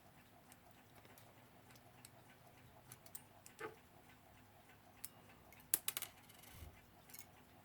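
Faint, irregular clicks and taps of small metal clock parts being handled and fitted, with a short cluster of louder clicks about six seconds in.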